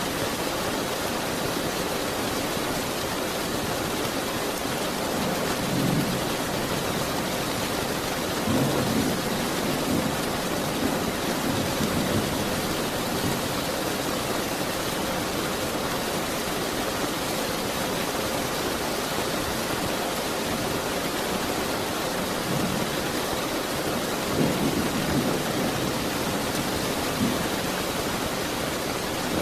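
Steady heavy rain, with low rumbles of thunder swelling up a few times.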